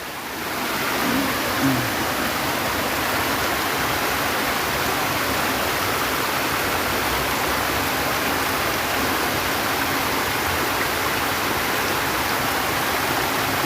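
Steady rush of flowing stream water, growing a little louder about half a second in.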